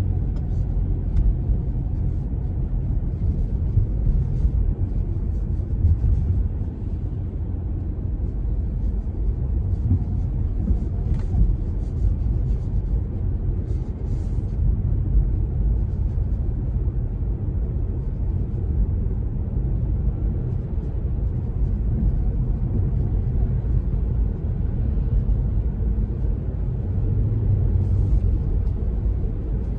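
Car driving, heard from inside the cabin: a steady low rumble of engine and tyres on the road, with a low engine hum coming in briefly near the end.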